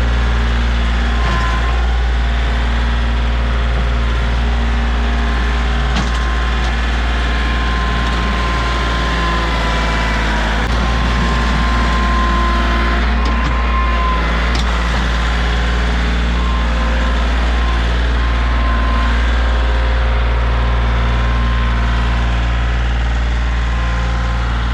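Tractor engine running steadily, with a few scattered sharp cracks and scrapes over it.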